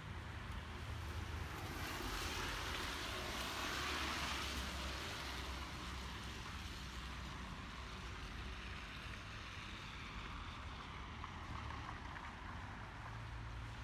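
Vehicle tyres hissing on a wet, slushy road as traffic passes, swelling about two seconds in and slowly fading, over a steady low rumble.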